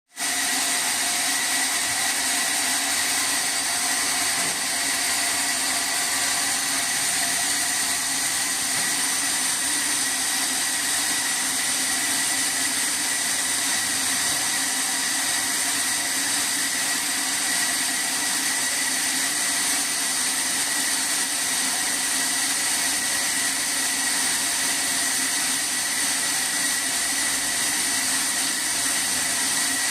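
Sawmill saw running steadily, a constant whine over a hiss.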